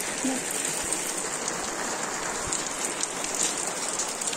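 Steady rain falling, an even hiss with scattered ticks of drops.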